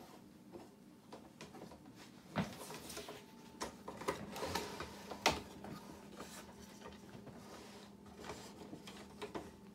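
Wooden parts and brass fittings of a Mabef M-22 French box easel knocking and clicking as it is handled and adjusted, with a sharp knock about two and a half seconds in and the loudest one about five seconds in. A faint steady hum lies underneath.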